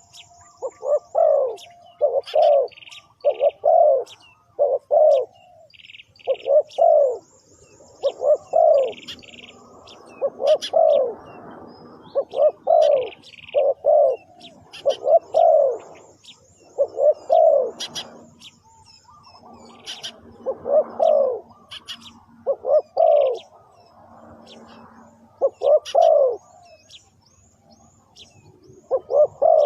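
Spotted dove cooing over and over in short phrases of two or three coos, the calls used to lure wild doves. Higher-pitched chirps and trills of smaller birds sound faintly between the phrases.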